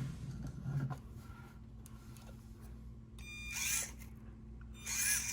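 Small brushed motor in an SCX24 crawler, an Injora 50-turn unit, spinning the drivetrain and wheels in two short bursts of throttle. Each burst is a brief whirring whine, the first about three seconds in and the second near the end.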